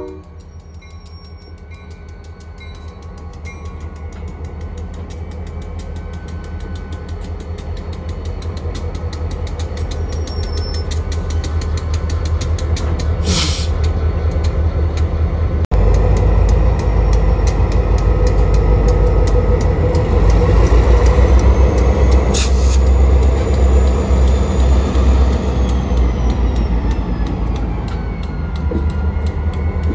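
Diesel freight locomotive running under power with a heavy, pulsing engine rumble that grows steadily louder as it approaches and jumps louder about halfway through. A high whine falls in pitch over the last few seconds.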